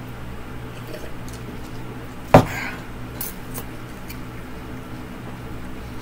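A drinking cup set down on a table with one sharp knock about two and a half seconds in, over a steady low room hum, followed by a few faint clicks.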